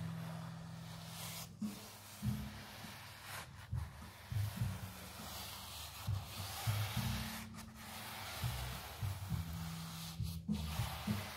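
Wide bristle brush swishing gloss varnish across a textured canvas in repeated strokes, with short pauses where the brush lifts. Soft background music with low bass notes plays underneath.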